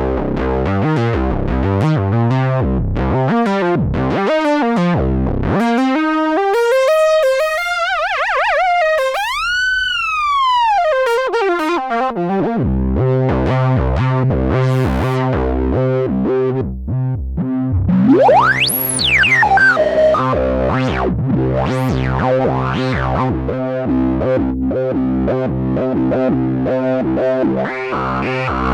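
Sequential Prophet-6 analogue polyphonic synthesizer playing factory presets, with effects and distortion. It opens with fast, short, repeated notes. About six seconds in, a single tone sweeps up in pitch and back down. From about twelve seconds in, a sustained low drone sounds under pulsing notes, with a high swooping glide up and down near the middle.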